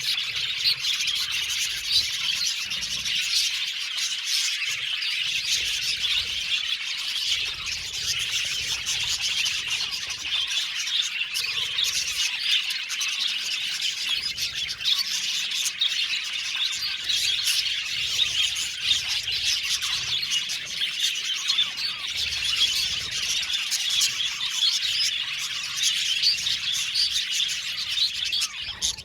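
A flock of budgerigars chattering and chirping at once, a dense continuous mix of many overlapping short calls and warbles with occasional squawks.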